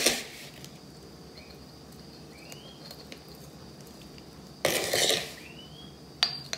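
Metal spoon scraping through a granular sugar-and-cocoa scrub and clinking against a bowl and a glass jar: a click at the start, a scraping burst a little under five seconds in, and a sharp clink near the end, with quiet between.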